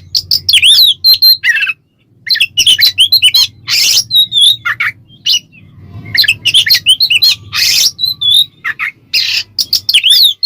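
Oriental magpie-robin (kacer) singing in a fast, varied run of short whistled notes, quick up-and-down sweeps and short harsh notes, with a brief pause about two seconds in. This is the loud, full 'ngeplong' style of kacer song.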